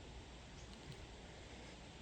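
Faint steady background hiss with a few faint clicks a little under a second in.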